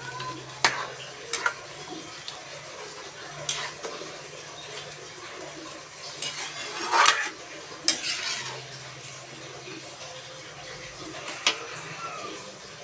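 A utensil stirring in a cooking pot, clinking sharply against it about half a dozen times, with a longer, louder scrape about seven seconds in.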